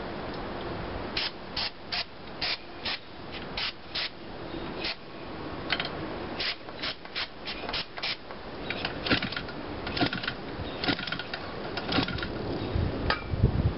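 Aerosol can of starting fluid sprayed in quick short bursts, about two a second, priming a small gasoline model-airplane engine that won't start. A dull thump near the end.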